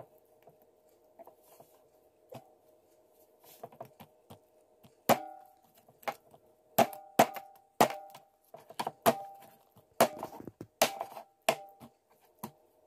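Meat cleaver chopping raw goose on a wooden cutting board: a few light strokes at first, then about a dozen sharp, irregular chops from about five seconds in.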